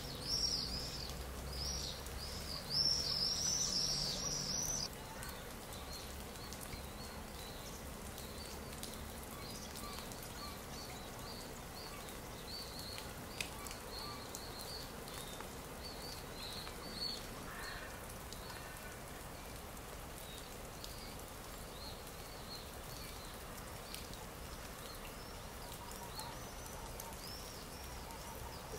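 Birds chirping: repeated short, high arched chirps over a soft outdoor background, loud for about the first five seconds and then fainter.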